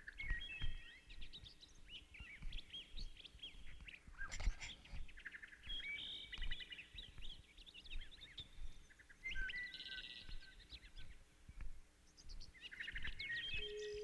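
Songbirds singing in several bursts of high trills and whistled phrases, with soft low thumps underneath.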